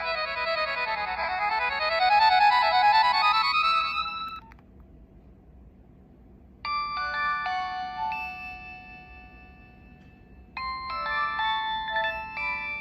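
Nokia 6016i polyphonic ringtones playing. One tone ends about four seconds in on runs of notes falling and then rising; after a short pause a second tone plays its melody and then starts over.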